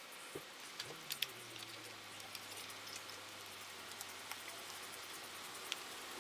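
A few faint, scattered clicks and taps of small engine parts being handled while ignition coil packs are refitted, over a steady hiss and a faint low hum.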